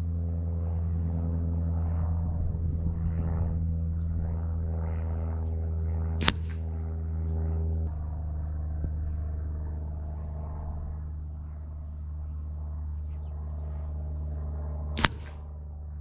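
Two sharp cracks about nine seconds apart: air rifle pellets from a Reximex Lyra striking the target at about 45 yards. A steady low hum runs under them and drops slightly in level partway through.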